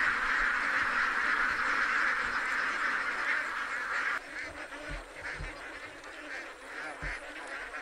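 A large flock of domestic ducks quacking together in a dense, continuous din. About four seconds in it drops suddenly to a quieter scatter of separate quacks.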